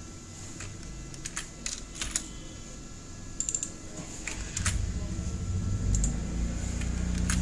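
Scattered keystrokes on a computer keyboard as code is typed. About halfway through, a low rumble comes in and grows louder under the key clicks.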